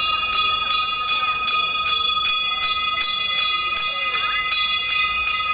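Temple bell rung rapidly and without a break during the Ganga Aarti, about five strokes a second, over a steady ringing tone.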